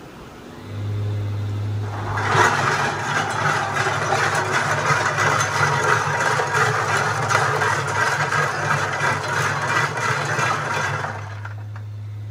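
Bottle corking machine starting up: an electric hum comes on about a second in, then from about two seconds a loud, dense clatter of bar-top corks tumbling in the rotating drum hopper, which stops shortly before the end, leaving the hum running.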